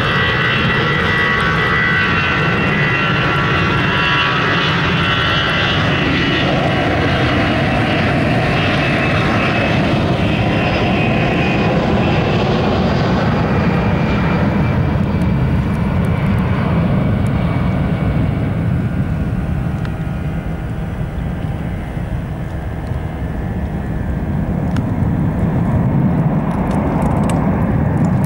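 Airbus A319 jet airliner's twin turbofan engines at takeoff power: a loud steady jet roar with a high fan whine that fades from about halfway through, leaving mostly a low rumble as the aircraft draws away.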